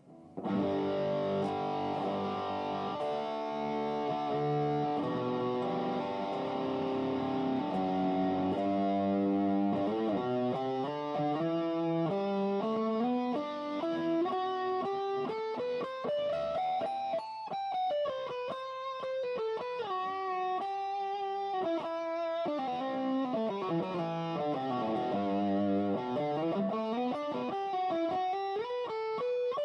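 Aria Pro II XR-series electric guitar being played: held chords for the first nine seconds or so, then single-note melodic runs that climb and fall in pitch.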